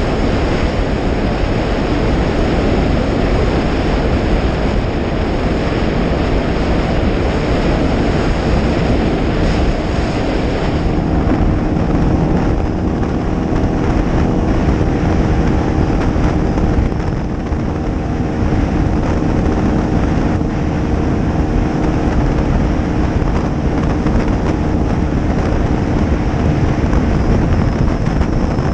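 Bass boat's outboard motor running at speed, with wind buffeting the microphone and water rushing past the hull. About eleven seconds in, a steady engine pitch comes through more clearly.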